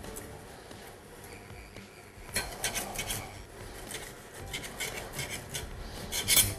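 Kitchen knife scraping along the skin of a whole sea bream on a work surface: a run of quick rasping strokes about two seconds in, and another near the end that is the loudest.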